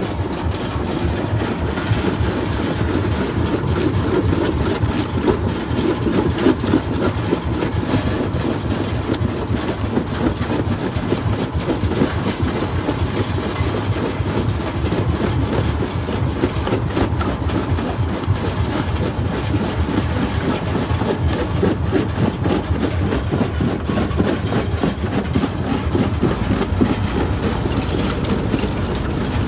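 Jaw crusher running under load, its jaws crushing rock: a steady, dense rumble full of constant cracking and clattering of stone.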